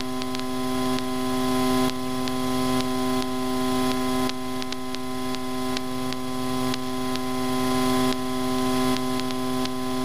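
Steady, even hum of a taxiing Cessna 152's engine and propeller, with faint ticks, as heard through the cockpit headset intercom recording.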